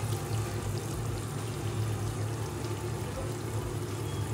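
Masala for chana pulao simmering in a pot on the stove: a steady bubbling hiss of cooking liquid over a steady low hum.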